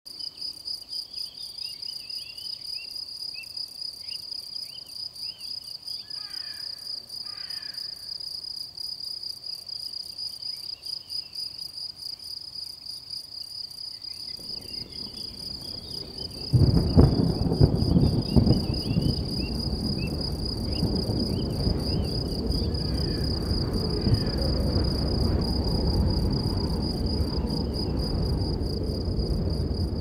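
Insects chirring in a steady, fast-pulsing high trill, with a few bird chirps. About halfway through, a much louder low rushing noise sets in and continues alongside it.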